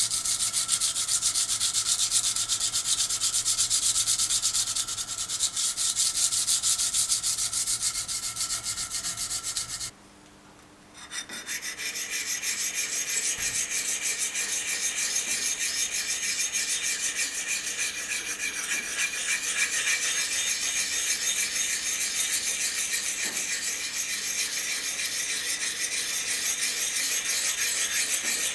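Forged steel herb-chopper blade being hand-sanded flat, with quick back-and-forth rubbing strokes. After a short break about a third of the way in, a hand-held diamond sharpening plate is rubbed along the curved edge in fast short strokes, a finer, continuous rasp.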